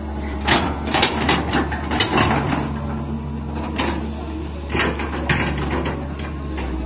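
Caterpillar 320C hydraulic excavator's diesel engine running at a steady drone, with two bursts of clanking, rattling and scraping as the bucket works through soil and rock, about half a second in and again around four seconds in.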